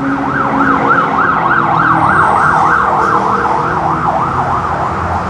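Emergency vehicle siren sounding a fast yelp, its pitch sweeping up and down about three times a second and fading near the end, over a steady traffic hum.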